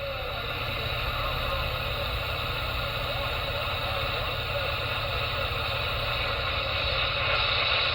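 CB radio receiver hiss and static from the open channel between transmissions, over the steady low rumble of a vehicle.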